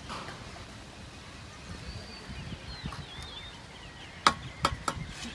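Bricklaying: four sharp taps in quick succession near the end, a mason's trowel knocking bricks into their mortar bed. Faint bird chirps are heard earlier.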